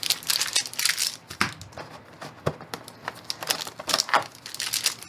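Foil booster-pack wrappers crinkling and a clear plastic box insert rustling as a stack of packs is lifted out by hand, in a run of short, irregular crackles.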